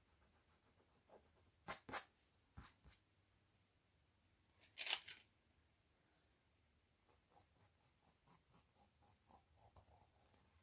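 Pencil sketching on a stretched canvas held on an easel: a few soft knocks as the canvas and pencil are handled, a short scratchy noise about halfway through, then light pencil strokes ticking on the canvas, about three or four a second, in a near-silent room.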